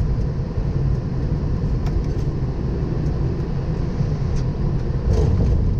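Steady low rumble and hiss on the flight deck of a Boeing 777, with a few faint clicks.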